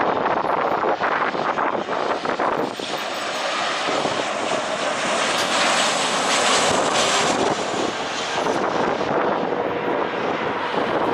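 Boeing 737 jet engines passing close by on the landing approach: a loud, continuous jet rumble and roar that grows brighter and harsher towards the middle, then eases off.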